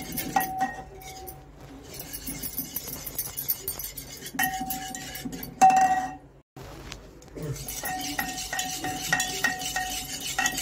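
Wire whisk beating yogurt in a metal bowl, its wires clinking against the side of the bowl, each clink ringing on at the same note. The strokes come in spells with a short break a little past halfway, then run steadily at about three clinks a second near the end.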